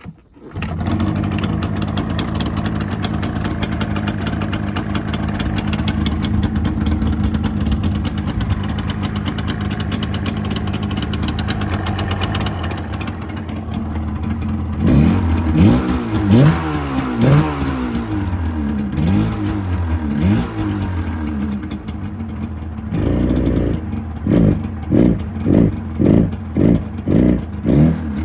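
Yamaha TDR250's two-stroke parallel-twin engine starting about half a second in and running steadily. It is then revved, its pitch rising and falling again and again, and near the end comes a run of quick throttle blips, about two a second.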